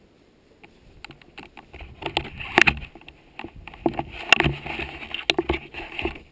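Handling noise on a helmet-mounted camera pole: irregular knocks, clicks and rustles as the bike helmet is taken off and handled. The sound grows busier from about two seconds in.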